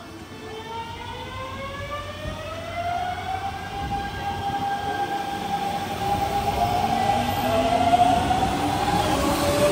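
Electric train's traction motors and inverter whining, a stack of tones rising in pitch as the train accelerates, then levelling off. Running noise from the wheels and rails grows steadily louder as it gathers speed.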